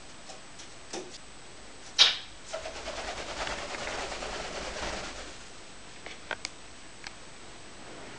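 A sharp knock about two seconds in, then a couple of seconds of rapid rattling and rustling as the camera is handled and moved, with a few faint clicks after it.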